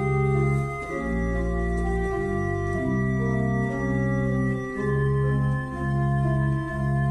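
Organ music: slow held chords with a deep bass, changing about once a second.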